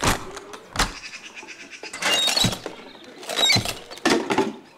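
An aluminium tackle case being opened and unpacked: sharp metal clacks and knocks at the start, just under a second in and near four seconds, with two stretches of clattering and clinking tackle about two and three and a half seconds in.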